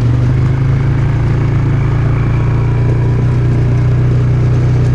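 Polaris Sportsman ATV engine running steadily with a low, even hum, just after being started, heard close up from the rider's seat.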